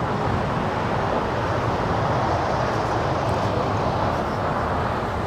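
Loud, steady roar of aircraft jet engines, holding level with no sharp events.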